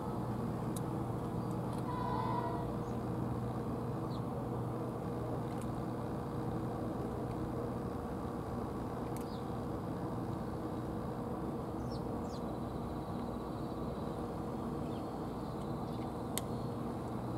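A steady low mechanical hum with a constant drone, and a few faint high chirps and thin clicks scattered over it.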